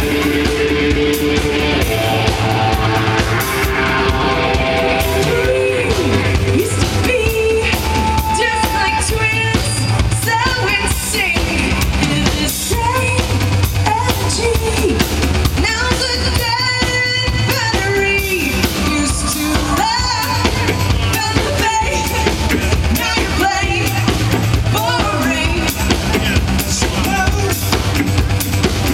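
Live pop-rock band with a drum kit keeping a steady beat, and a woman singing the melody over it.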